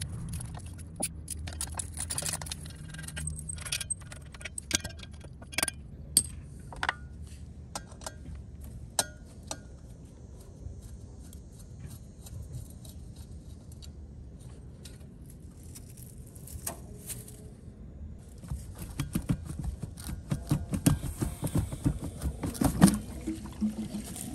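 Hand tools clinking and scraping on the fittings of a Pureline Prime pool pump motor as its mounting bolts and rear-cap screws are undone: irregular light metallic clicks and taps, busiest at the start and again near the end.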